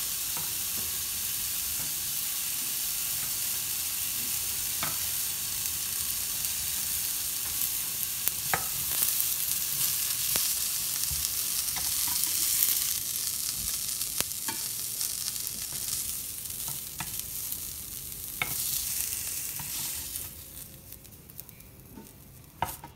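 Vegetables sizzling in oil on a hot ridged griddle pan, with occasional sharp clicks of metal tongs against the pan as they are lifted off. The sizzling dies down near the end as the pan empties.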